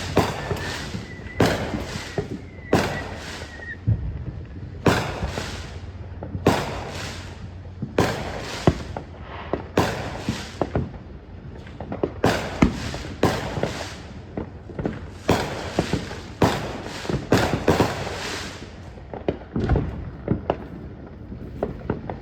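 Fireworks going off in a long irregular series of sharp bangs, about one or two a second, each trailing off in a crackle. A faint whistle sounds through the first few seconds.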